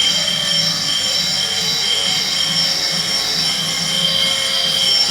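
Steady high-pitched mechanical whine: several high tones that swell and fade over a low hum, as from a running machine.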